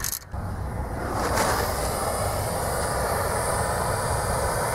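Hand-held propane torch burning with a steady hiss, its flame heating the steering knuckle around a seized ball joint stud to free it. The hiss comes on within the first second and then holds steady.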